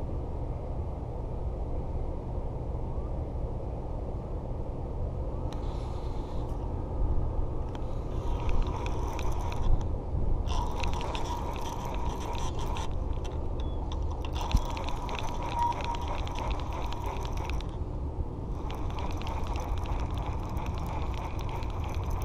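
Conventional fishing reel being cranked in several spells of a few seconds each, its gears giving a fast, dense clicking as line is wound in. A steady low rumble runs underneath.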